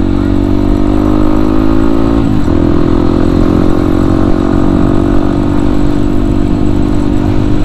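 Yamaha WR155R's single-cylinder engine running at a steady speed while riding. There is a brief dip in engine note about two seconds in, after which it settles back to the same steady pitch.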